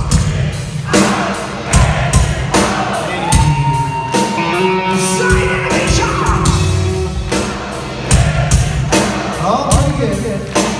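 Hard rock band playing live: drums hitting a steady beat under electric guitar, with a singer; a long held note sounds through the middle.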